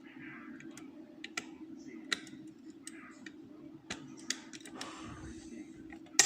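Lever picks working inside an ERA five-lever curtained lock: irregular small metal clicks and scrapes as the levers are lifted, with a sharper, louder click near the end. A steady low hum runs underneath.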